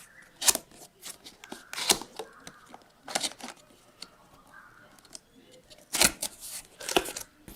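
A cardboard box and its packaging being opened by hand: a series of sharp rips and scrapes, about five loud ones, between quieter rustling.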